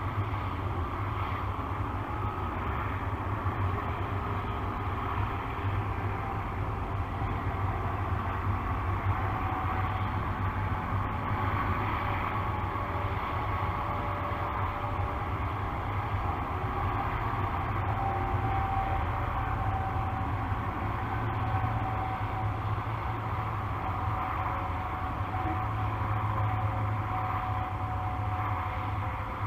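Steady low background rumble with a faint hiss above it.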